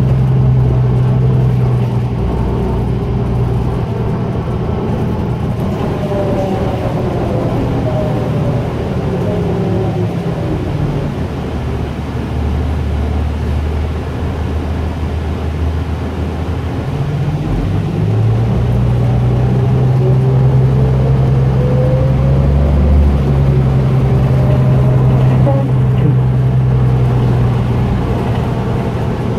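Inside a 2004 New Flyer DE40LF diesel-electric hybrid bus under way: a steady drone from its Cummins ISL diesel, with an electric drive whine that falls in pitch as the bus slows, starting a few seconds in, and rises again as it picks up speed past the middle.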